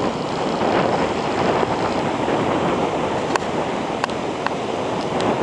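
Steady rush of a waterfall running full after days of heavy rain, with a few faint clicks in the second half.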